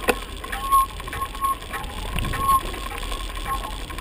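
Bicycle rolling over rough ground, its frame and drivetrain rattling and clicking, with low wind rumble on the microphone.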